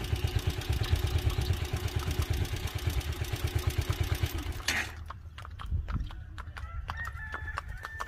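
Motorcycle engine running for about the first five seconds, then dropping away. What remains is the clip-clop of a horse's hooves on the concrete road as it pulls a two-wheeled cart, with a rooster crowing near the end.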